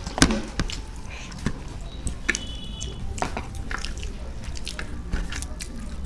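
Eating sounds close to the microphone: scattered small wet clicks and squishes of chewing and working the last of a plate of rice and curry.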